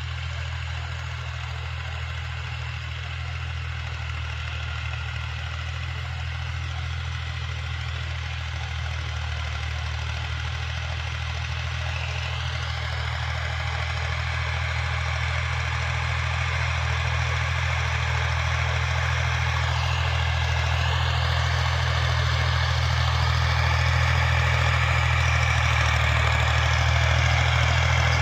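Tractor engine running steadily for ploughing, with a strong low hum. Its note dips briefly twice, about midway and again about two-thirds through, and the sound grows gradually louder.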